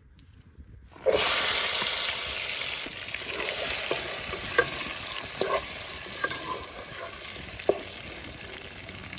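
Chopped onion, garlic and tomatoes hitting hot oil in a pan, bursting into a loud sizzle about a second in, then frying steadily and easing a little while being stirred, with a few sharp knocks of the utensil against the pan.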